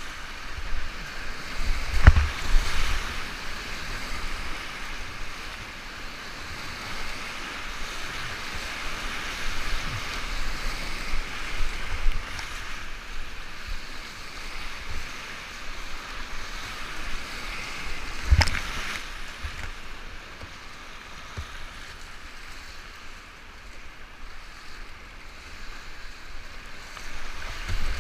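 Whitewater rapids rushing and splashing around a kayak, heard up close from a camera on the paddler, with wind buffeting the microphone. Two sharp knocks stand out, about two seconds in and again about eighteen seconds in.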